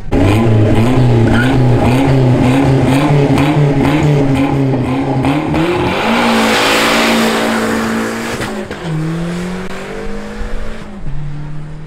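Drag-racing car's engine held at high revs with a wavering note for about six seconds, then launching with a burst of hissing tire noise. The engine note then rises and drops through gear changes.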